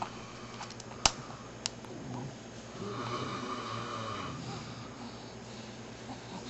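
A baby breathing through nose and mouth while sucking on an adult's finger, with two sharp clicks a little after a second in.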